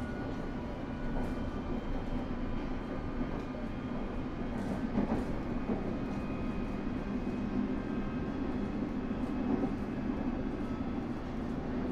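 Inside a London Underground S7 stock (Bombardier Movia) passenger car, the train running: a steady rumble of wheels on rail with faint steady tones above it and a few light clicks.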